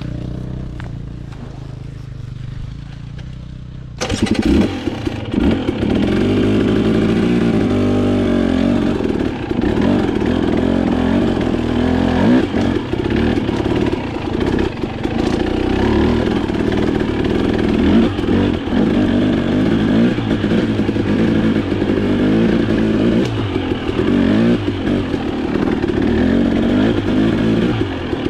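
Dirt bike engine running low and quiet, then from about four seconds in loud and revving up and down as the bike is ridden over a rocky trail, with some rattling of the bike.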